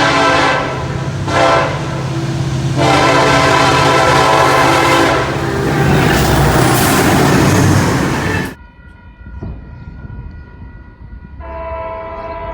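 Locomotive air horn sounding several loud blasts, with the rush of a passing train building under the last one. It cuts off abruptly, and near the end a fainter train horn sounds.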